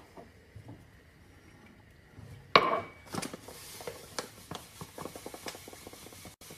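Granulated sugar being measured out from a paper sugar bag. About two and a half seconds in there is a loud, sudden rustling burst. After it come the crinkle of the paper bag and a run of small ticks as sugar pours into a ceramic measuring cup.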